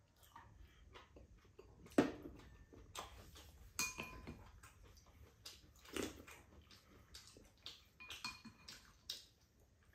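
Spoons and chopsticks clinking against ceramic bowls and a pan during a meal, a few scattered clicks with the sharpest about two seconds in, with quiet chewing in between.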